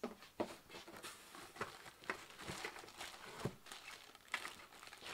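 Unboxing sounds: hands rummaging among foam packing in a cardboard box and lifting out a part in a plastic bag. Plastic rustles, with a scattered series of sharp clicks and knocks as parts and packing are handled.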